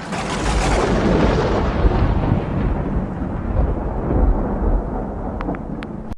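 Thunder sound effect: a sudden clap followed by a long rolling rumble that slowly loses its high end, with a few faint crackles near the end.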